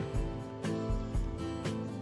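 Music with a steady beat, about two beats a second, over sustained pitched notes.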